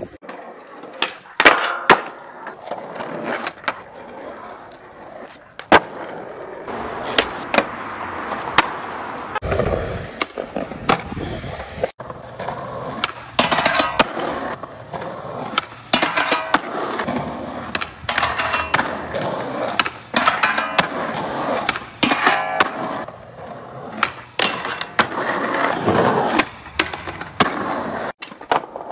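Skateboard wheels rolling over concrete and asphalt, broken many times by sharp clacks as the board is popped and lands during flat-ground tricks.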